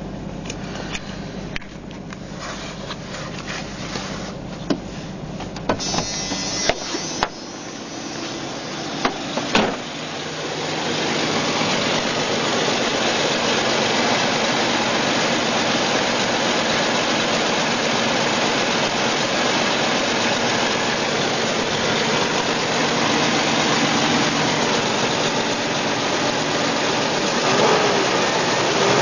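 1993 Jeep Cherokee engine idling cold. It is heard more faintly at first, with a few sharp knocks and clicks in the first ten seconds, then much louder and noisier close up under the open hood from about ten seconds in. It is a rough idle with tapping, which the owner is troubleshooting as possible lifter tap or piston slap.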